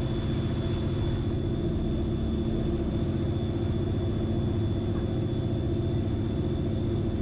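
A boat's engine running steadily under way, a constant drone with a thin high whine above it, mixed with the rush of the wake and wind.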